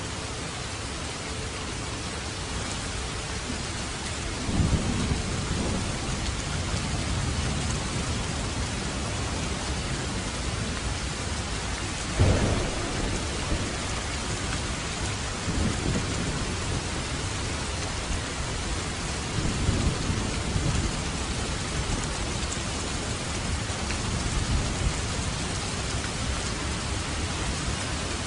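Steady heavy rain with rolls of thunder: low rumbles swell up about five times, the loudest about twelve seconds in.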